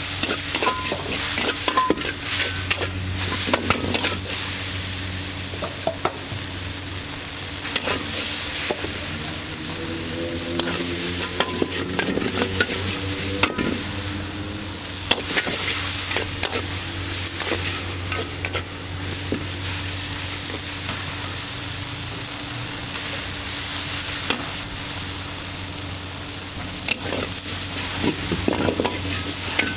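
Char kway teow being stir-fried in a hot wok: continuous sizzling with frequent sharp scrapes and clanks of the metal spatula against the wok, over a steady low hum.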